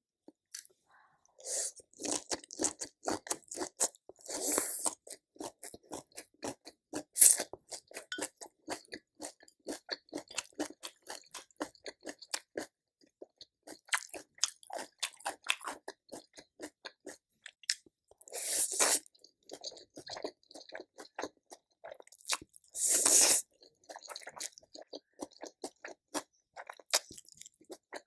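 Close-up mouth sounds of a person eating: steady wet chewing with many small crunches and clicks, broken by a few louder, longer bursts.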